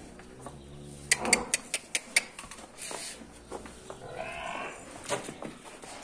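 Livestock calling in a buffalo shed: a low, drawn-out call lasting about two seconds, with several sharp clicks over it, then a shorter, higher-pitched call about four seconds in.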